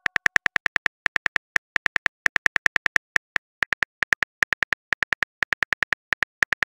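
Phone keyboard typing clicks from a texting-story app: a quick run of short, identical ticks, about seven a second, with a few brief pauses.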